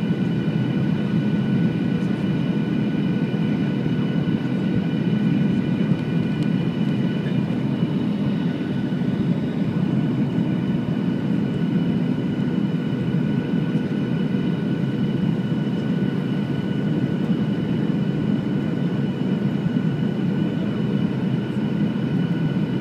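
Steady cabin noise inside a Boeing jetliner on descent: a dense rumble of the engines and rushing air, with a few thin high whining tones from the engines, some of which fade about eight seconds in.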